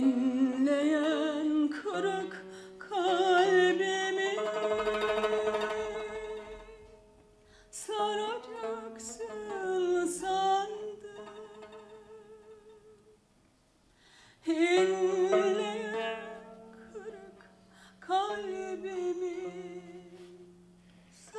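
A woman sings a slow Turkish classical song with wide vibrato, in long phrases with short breaks between them. A plucked Turkish tanbur accompanies her.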